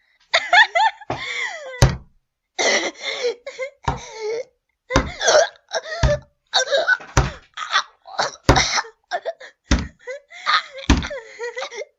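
A girl's voice crying out and groaning in pain, broken by a heavy thud roughly once a second: dubbed cries with repeated impact sound effects.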